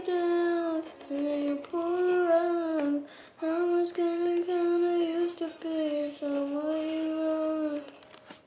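A young girl singing a slow melody alone, without accompaniment, in long held notes and short phrases; the singing stops near the end.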